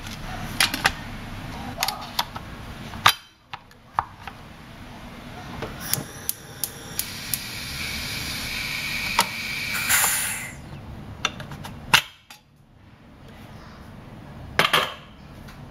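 Stainless steel pots and a pressure cooker lid being handled, with clicks and metal knocks. About halfway through, steam hisses out of the pressure cooker's valve with a steady whistle for a few seconds, then stops abruptly. A short clatter of metal knocks comes near the end.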